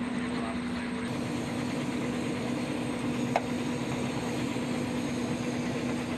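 Military helicopter's engine and rotor noise heard from inside its cabin: a steady low hum over a constant rushing noise, with one brief sharp click around the middle.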